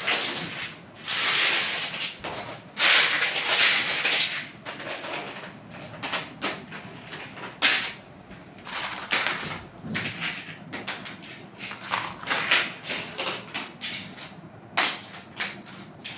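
Rustling, scraping and knocking of things being handled, in irregular bursts with sharp clicks.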